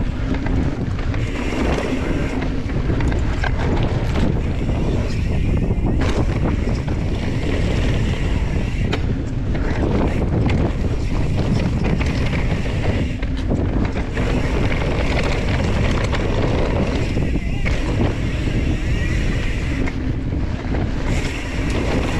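Heavy wind buffeting on a helmet-mounted camera microphone during a fast mountain-bike descent, over the crunch of Specialized Stumpjumper Evo tyres on dry dirt. Short knocks and rattles come through as the bike hits bumps.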